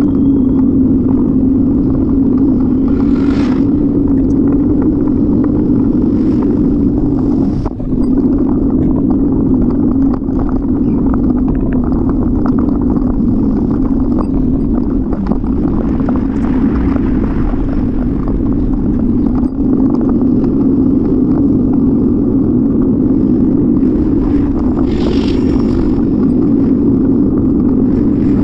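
Steady wind and road rumble on the microphone of a camera riding on a moving bicycle, with a brief dip about eight seconds in.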